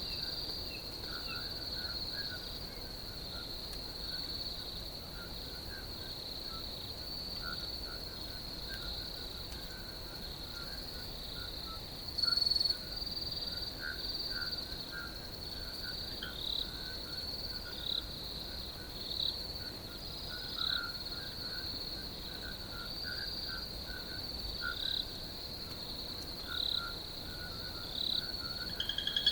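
Crickets trilling in a steady high chorus, with scattered lower chirping calls from other animals and a brief louder call about twelve seconds in.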